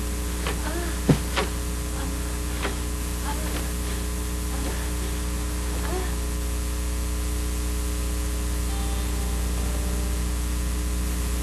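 Steady electrical mains hum with a layer of static hiss. A few faint short sounds come in the first few seconds, among them a sharp click about a second in.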